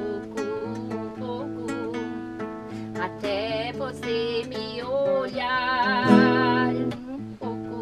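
Classical guitar played as accompaniment to a woman singing. From about three seconds in, she holds long, wavering notes over the guitar.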